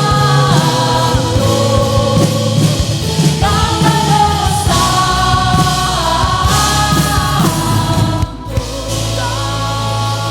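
Worship band and singers performing a Spanish-language worship song. The music breaks off briefly about eight seconds in, then a sustained chord carries on.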